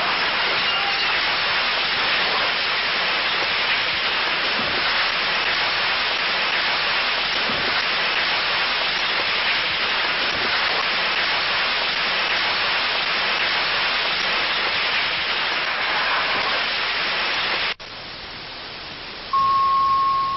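Loud, steady static hiss, like a broadcast signal lost to noise, which drops suddenly to a quieter hiss near the end. A single steady beep tone is then held for about a second.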